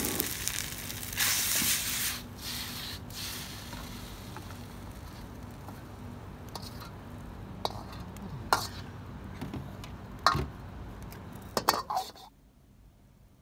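Noodles sizzling and being tossed in a wok over a gas burner, loudest in the first couple of seconds. This settles into a quieter frying hiss, with a metal ladle knocking against the wok several times. The sound cuts off shortly before the end.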